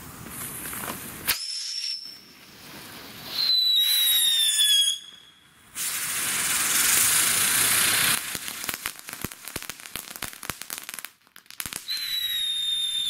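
Phantom Fireworks Helicopter ground-novelty firework running: a hissing spray of sparks broken by whistles that slide slightly down in pitch. A loud spell of hiss comes in the middle, then a run of crackling pops, and a last whistle sounds near the end.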